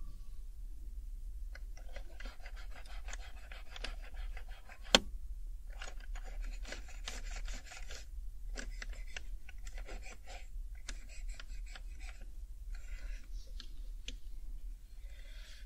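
Alcohol pad scrubbing over the keycaps of an HHKB Professional 2 keyboard: scratchy rubbing in short spells, with many small clicks from the keys and one sharp click about five seconds in.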